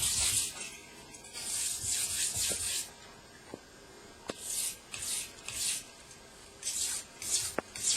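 Steel knife blade stroked by hand across a wet 1000-grit water stone, a hissing scrape with each stroke, while a new primary edge is ground to remove chips. There are two long strokes, then shorter, quicker strokes from about halfway, with a few light clicks.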